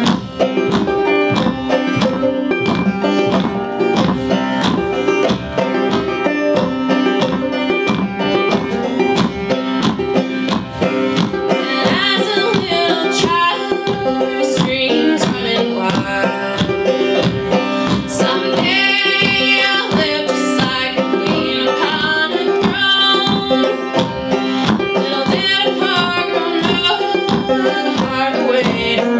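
Acoustic string band playing banjo, mandolin, upright bass and acoustic guitar in a steady plucked rhythm. Women's singing comes in about twelve seconds in.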